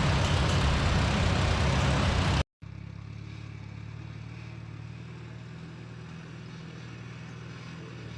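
A 1948 Farmall C tractor's four-cylinder engine running steadily. About two and a half seconds in, the sound cuts off and a quieter steady engine hum takes over.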